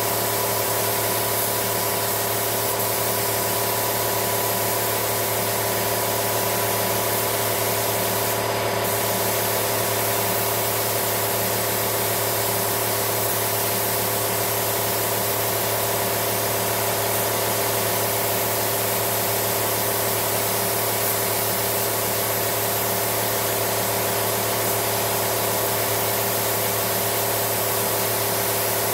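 Steady machine hum with an even hiss and a few constant tones, unchanging throughout, with a brief sharper hiss about eight seconds in.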